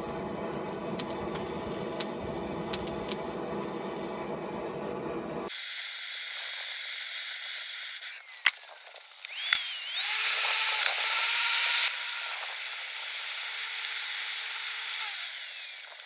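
Handheld propane torch hissing as its flame is held into the coal of a forge to light it, with two sharp clicks and a louder burst of hiss about ten seconds in. A steady whine follows, from the forge's hand-crank blower being turned to fan the fire.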